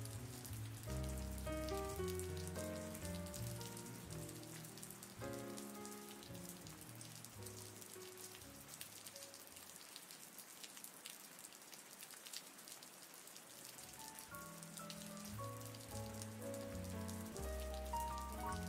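Steady patter of rain, with soft, slow background music of held chords that thins out in the middle and swells again near the end.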